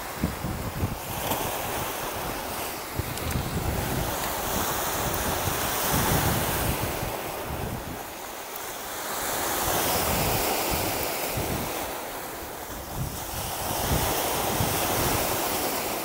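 Surf washing onto a stony beach, swelling and fading every few seconds, with wind buffeting the microphone.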